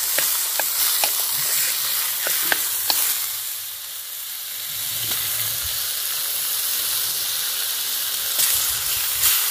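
Tra catfish steaks and minced lemongrass frying in hot fat in a steel wok: a steady sizzle, easing briefly about four seconds in. Light clicks of chopsticks against the pan come several times in the first three seconds.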